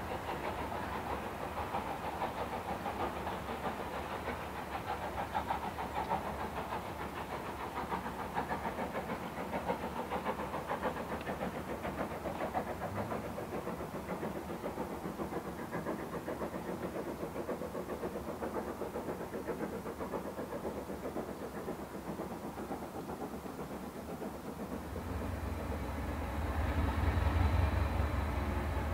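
Diesel locomotive engine working hard as it pulls away, its beat fading slowly with distance. Near the end a deep, steady low engine rumble comes in and grows louder.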